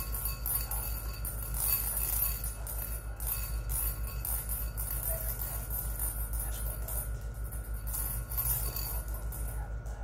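Continuous light jingling tinkle over a steady low hum.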